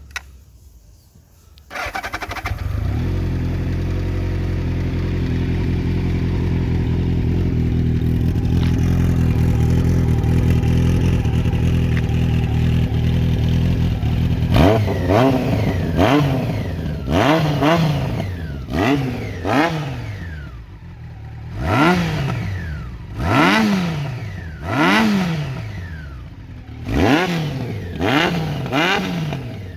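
Honda CBX 750F's four-cylinder, four-carburettor engine breathing through an aftermarket 4-into-1 exhaust: it starts about two seconds in and idles steadily, then from about halfway the throttle is blipped over and over, about a dozen sharp revs that rise and fall.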